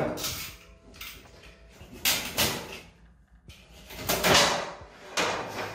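Rolled-up bundle of wooden bed slats handled and set into a wooden bed frame, knocking and sliding against it in several short bursts of scraping and clatter.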